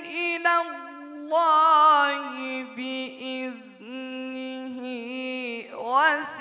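A male Quran reciter chanting in the melodic mujawwad tajweed style into a handheld microphone: long held notes with wavering ornaments and short breaks, drawing out the word 'Allah' and moving into 'bi-idhnihi' near the end.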